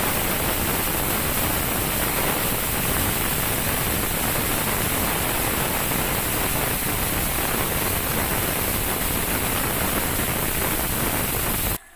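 Steady, loud hiss of steam from a Prestige aluminium pressure cooker building pressure on the stove before its whistle. The hiss cuts off suddenly near the end.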